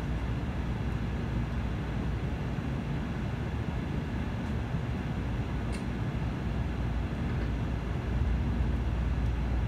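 Cabin noise of a Tokaido Shinkansen kodama train pulling out of a station: a steady low rumble with a hiss above it, growing slightly louder near the end. One faint click about six seconds in.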